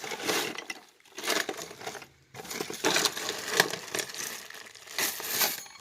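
Small metal items (keys, coins, trinkets) clinking and rattling as a hand rummages through a box of them, with short pauses.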